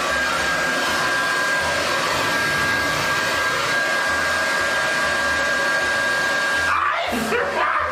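Hand-held hair dryer blowing steadily with a high whine over its rushing air. The whine stops near the end.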